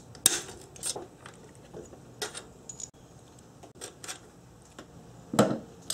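Scattered light metallic clicks and taps of a socket wrench working the 12 mm bolts that hold an electronic throttle body, as the bolts are loosened and drawn out, with a sharper knock near the end.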